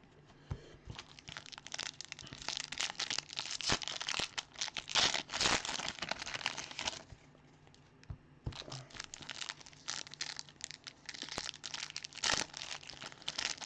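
Foil wrappers of Bowman Draft baseball card packs crinkling and tearing open, in irregular rustling bursts with a short quieter lull about seven seconds in.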